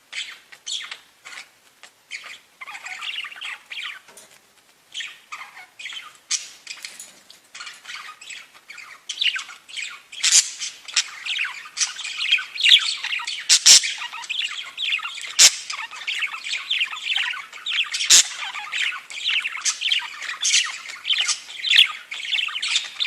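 Budgerigars chattering, chirping and squawking without pause, sparser at first and busier and louder from about halfway in. A few sharp clicks sound among the calls.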